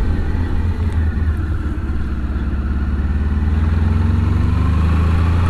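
Honda ST1100 Pan-European's carbureted V4 engine running on the road at a steady note that grows gradually louder over the last few seconds, with wind rush on the helmet microphone.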